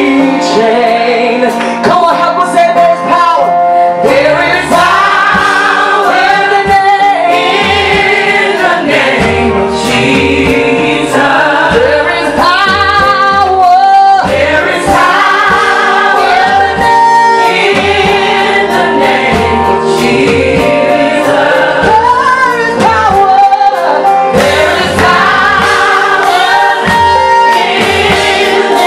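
Live gospel worship singing: a female lead vocalist with a backing vocal group, over held instrumental accompaniment.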